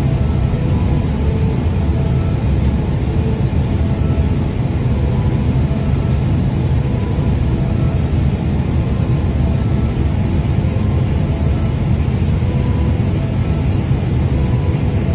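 Steady flight-deck noise of an Airbus airliner on ILS final approach: airflow and engine drone, heaviest in the low end and unchanging throughout.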